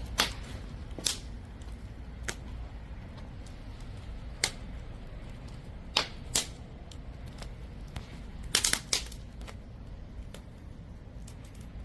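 Wood fire crackling in a wood-burning stove: sharp, irregular pops every second or so, with a quick cluster of several pops a little past the middle, over a steady low rumble.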